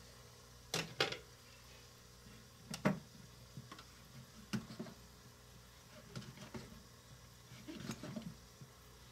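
Knife slicing a portobello mushroom on a small wooden cutting board: scattered soft clicks and taps as the blade meets the board, with a few sharper knocks in the first three seconds.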